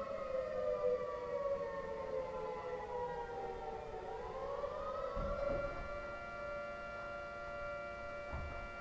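3T22A outdoor warning siren sounding during a test, its chord of several tones sliding slowly down in pitch for about four seconds, then climbing back up and holding steady. There are a couple of brief low rumbles underneath.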